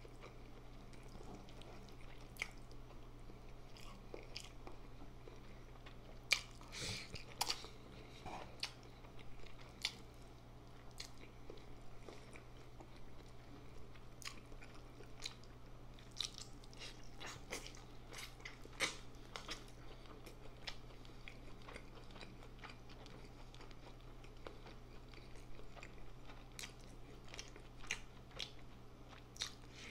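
Close-miked chewing and biting of instant noodles and chicken, with irregular wet clicks and crunches. A faint steady low hum runs underneath.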